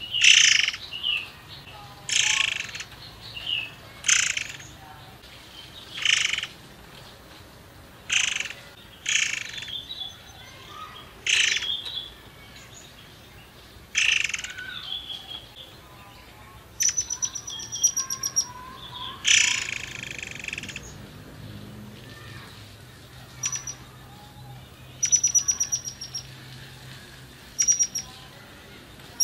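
Caged murai air calling: loud, short calls repeated about every two seconds. From about halfway it switches to rapid rattling trills, used as a lure song to set other murai air singing.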